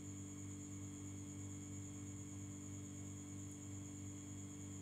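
Steady low electrical hum with a faint high whine over a light hiss: the recording's background noise.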